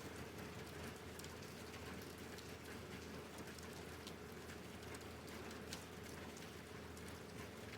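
Steady rain with many individual drops ticking sharply on a surface, over a faint steady hum.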